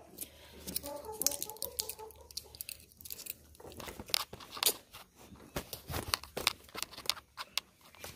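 Crinkling and clicking of a foil blister strip as a tablet is pressed out of it: irregular small snaps and crackles, a few each second.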